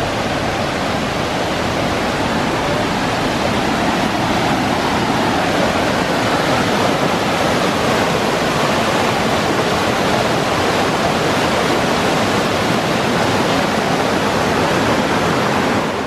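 Mountain creek rushing: a loud, steady sound of running water.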